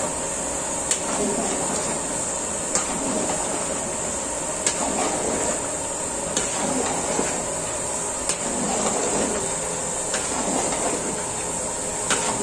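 A metal blade stirs thick curry in a large aluminium pot, clicking against the pot's side about every two seconds over a steady hiss.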